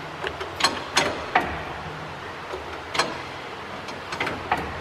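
Irregular metallic clicks and knocks from an old truck's gear lever and shift linkage being moved by hand. The linkage has just been readjusted and now shifts well.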